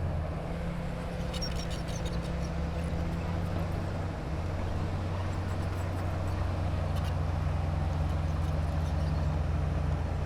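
Heavy diesel engine of earthmoving machinery running steadily with a low hum, easing briefly about four seconds in and then picking up again. A few faint clicks sound over it.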